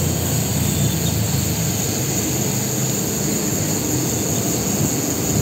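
Steady wind rumble and road noise on the microphone of a moving bicycle.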